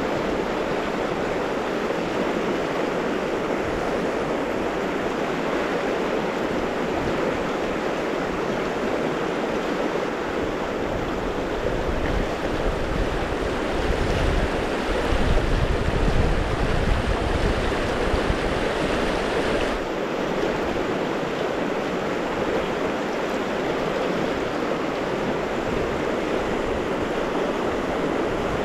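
Yoshino River rapids running steadily, a constant rush of water, with a stretch of low rumble about halfway through.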